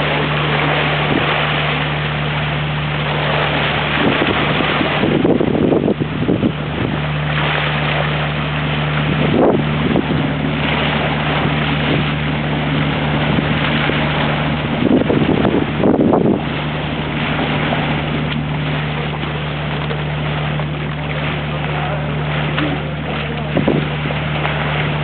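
Steady hum of a boat's engine under the rush of sea water and wind on the microphone, with a few brief louder bursts.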